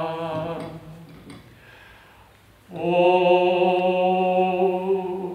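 A man chanting long, steady, wordless notes on a single pitch. The first note fades out within the first half-second, and after a pause of about two seconds he takes up a second long held note at the same pitch.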